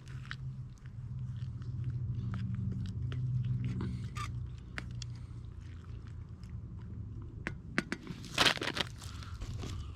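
A spoon stirring noodles and vegetables in a small camp cooking pot: wet scraping and light clicks against the pot, with a louder clatter about eight and a half seconds in, over a steady low rumble.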